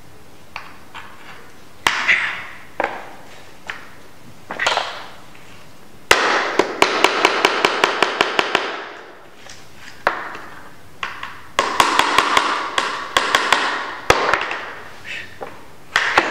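Wooden boards and hand tools knocked and handled on a hard floor: a few separate knocks, then two runs of quick tapping with scraping, about seven taps a second, each lasting around three seconds.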